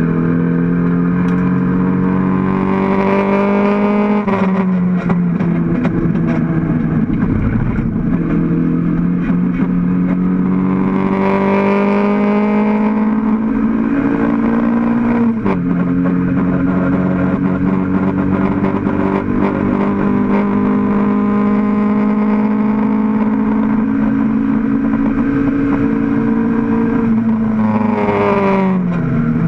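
Mk1 Toyota MR2 race car's four-cylinder engine heard from inside the stripped cabin under hard acceleration, its pitch climbing steadily. The pitch drops suddenly at two upshifts, about four and fifteen seconds in, and falls away sharply near the end as the throttle is lifted.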